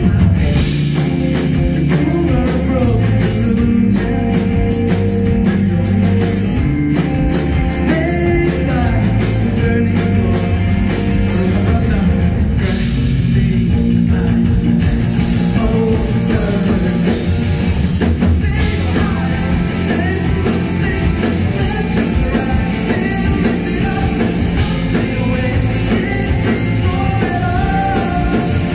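Live rock band playing at full volume: electric guitars, keyboards, bass and drums, with a male voice singing over them.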